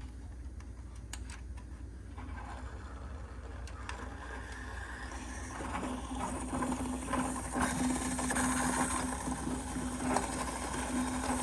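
The bottom heating element of an electric water heater is being unscrewed with an element wrench, giving a few clicks and scraping. Water then starts rushing out of the tank opening around the loosening element, a hiss that grows steadily louder.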